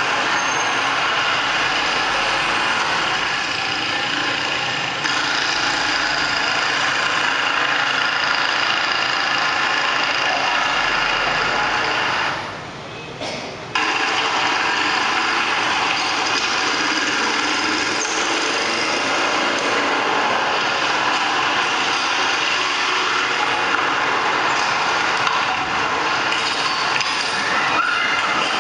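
Steady engine and street traffic noise from a projected film's soundtrack, heard through hall loudspeakers. It drops away for about a second and a half around twelve seconds in, then resumes.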